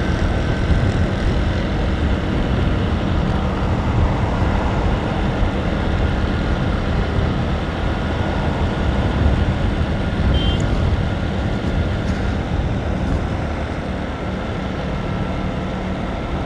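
Motorcycle riding at steady speed on an open road: steady engine hum mixed with road and wind noise.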